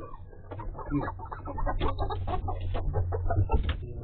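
Hens clucking and fussing on their roost, the calls coming thick and fast and louder from about a second in, with a flurry of wing flapping near the end as one hen is moved.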